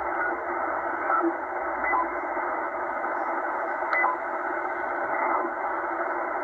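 Shortwave receiver in upper sideband being tuned across the band, giving a steady hiss of band noise with a few short beeping tones about one, two and four seconds in.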